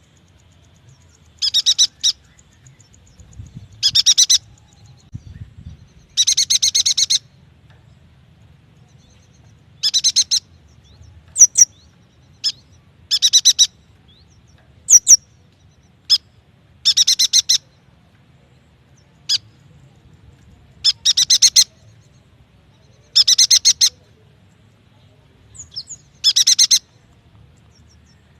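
Yuhina song: repeated bursts of rapid, high chattering trills, each about half a second to a second long and coming every two to three seconds, with short, sharp single notes between some of them.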